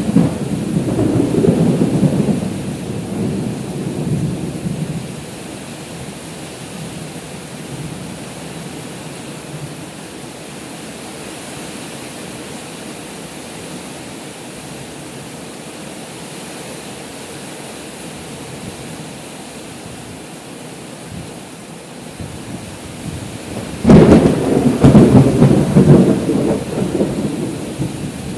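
Heavy rain pouring steadily during a thunderstorm, with two claps of thunder. The first rumbles for about five seconds at the start. The second breaks suddenly about 24 seconds in, is the loudest sound, and rumbles on until near the end.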